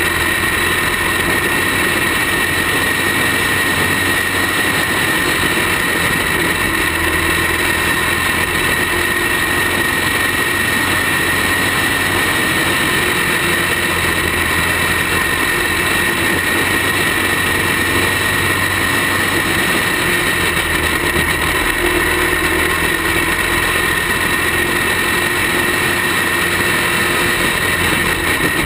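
Racing kart's small engine running continuously at race pace, heard close up from the kart itself: a loud, steady drone whose pitch wavers slightly as it goes.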